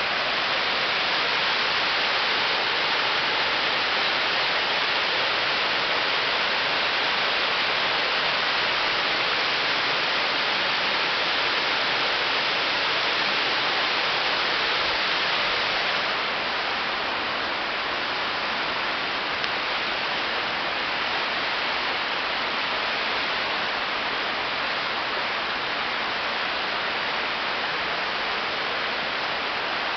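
Steady rushing of a mountain stream running beside the trail, a constant hiss that drops a little in level about halfway through.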